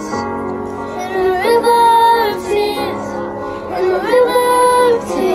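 A young girl singing over a pop song's backing track, holding two long wordless notes, each sliding up into the pitch, the first about a second and a half in and the second about four seconds in.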